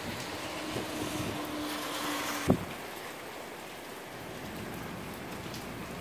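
Gusty wind and steady rain hissing. A faint steady hum ends with a single sharp knock about two and a half seconds in, after which the rain goes on more quietly.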